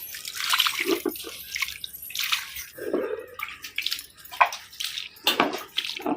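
Water splashing and sloshing in short, irregular bursts, as when something is washed by hand in a pot or bowl of water.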